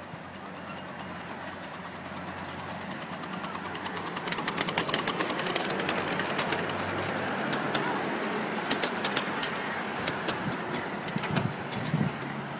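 Miniature steam locomotive and its passenger cars running on small-gauge track. The running noise builds, and from a few seconds in a quick irregular run of sharp clicks from the wheels over the rail joints lasts most of the way through, easing near the end.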